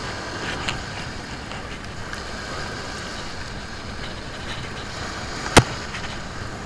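Steady wash of small waves breaking on a sandy shore, with wind noise. One sharp click about five and a half seconds in.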